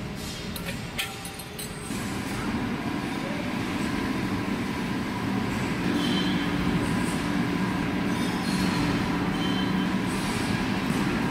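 A few light metal clinks from setting up a clutch pressure plate in a lathe chuck, then about two seconds in the lathe starts and runs with a steady mechanical hum as it spins the plate, growing a little louder a few seconds later.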